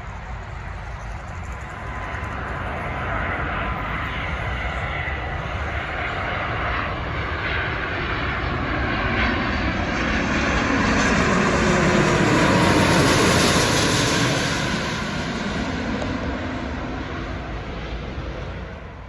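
Jet airliner passing close by: engine noise builds, peaks about two-thirds of the way through, then fades, with whining tones dropping in pitch as it goes past.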